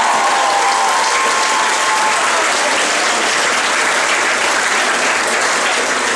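Audience applauding loudly, with a few drawn-out high cheers that fade out about two seconds in.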